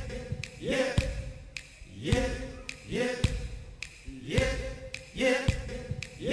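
A male singer's voice saying "yep" again and again on a short loop, about five times, each "yep" sliding up in pitch into a short held note, with a low thump beneath.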